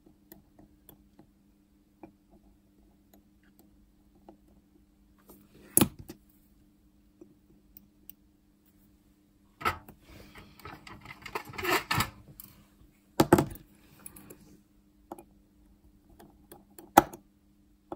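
Small, sharp metal clicks and taps of a watchmaker's screwdriver and tweezers on a Seiko 7S36 watch movement and its metal holder. A short run of scratchy rattling comes about ten to twelve seconds in.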